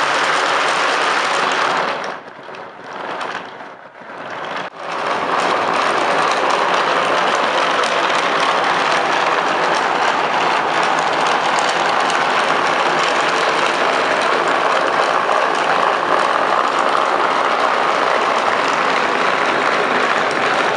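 Loud, steady mechanical running noise, like an engine, which drops away briefly about two seconds in and returns at full strength about five seconds in.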